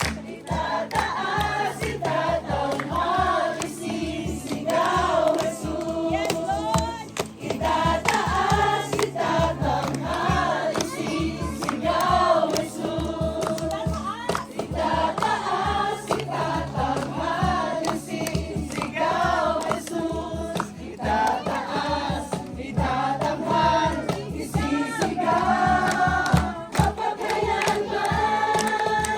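Music with a group of voices singing over a steady beat, in the style of a choir or worship song.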